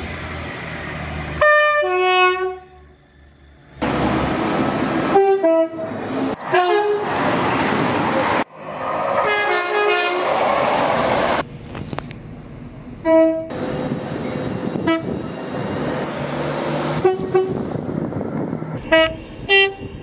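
A string of British passenger trains sounding their horns in quick succession, about eight short blasts, several of them stepping from a high note to a low one. Between the blasts comes the steady rush and rumble of trains running through, with abrupt changes as one clip gives way to the next.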